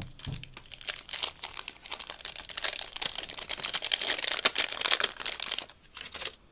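Hands unwrapping a small wrapped packet: the wrapping crinkles and tears in a dense, crackly rustle for about five seconds, with a soft low thump at the start.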